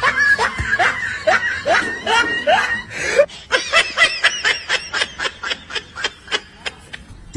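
A person laughing hard in a long run of rhythmic ha-ha pulses, which quicken to about four a second about halfway through and trail off near the end.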